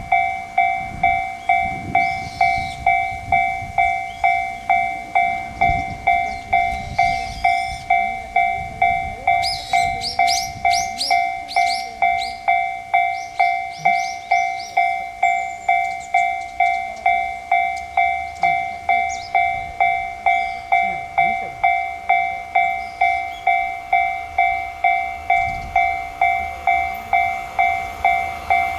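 Railway level-crossing warning bell ringing, a steady two-tone ding repeating about one and a half times a second, with the low rumble of a train. Birds chirp briefly about a third of the way in.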